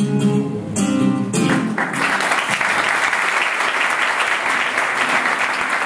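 Guitar music plays briefly for about the first two seconds, then an audience applauds steadily.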